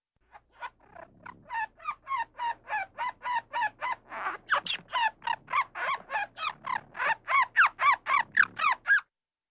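An animal calling in a long rapid series of short, pitched, squawking calls, about three to four a second, growing louder about halfway through.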